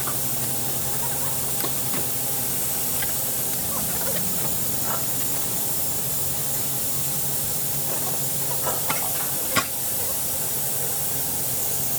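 A steady hiss over a low hum, with a few light clicks and one sharper knock late on.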